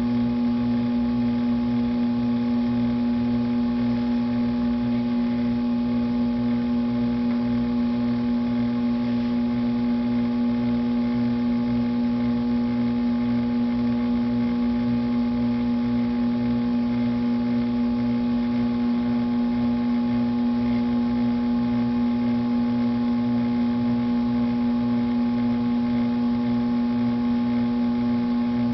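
Electric potter's wheel motor running with a steady, unchanging hum.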